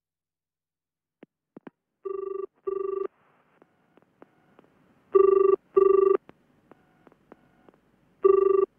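Telephone ringing in the British double-ring pattern: after two faint clicks, three pairs of short steady tones come about three seconds apart, the first pair quieter than the rest. It is the call that is answered with 'Scope Charity Office, how can I help you?'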